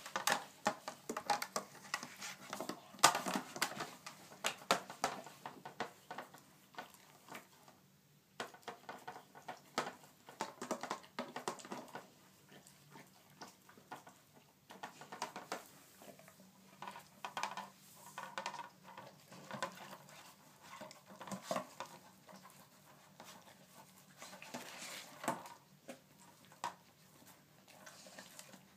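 An Airedale terrier sniffing and nosing at a round treat-puzzle disc and pawing at it, making irregular clicks and knocks as the puzzle's covers and base are pushed about, mixed with short sniffing bursts.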